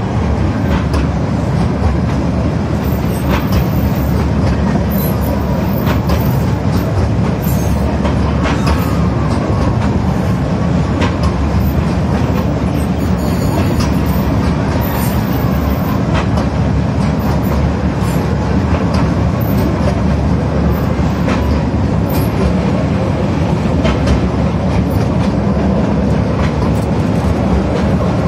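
A miniature ride-on train running along its track, heard from aboard the open carriage: a steady rumble of wheels and running gear with scattered clicks from the rails.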